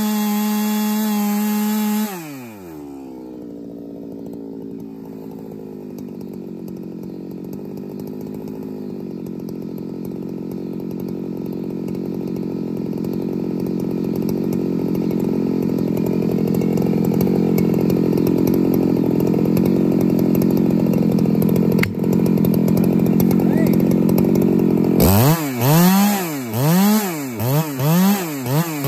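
Ported big-bore chainsaw running flat out, then dropping to idle about two seconds in. A lower, steady engine note runs on and slowly grows louder. Near the end the revs surge up and fall back over and over, about twice a second, as the long bar goes into a large log.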